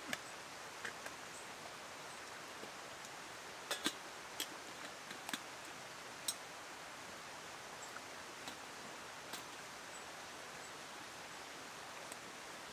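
Camp cooking at a small wood-burning twig stove: a scattering of short sharp clicks and light knocks from the metal pot being handled and set on the stove and from the fire, most of them bunched around four seconds in. Under them runs a steady, even hiss.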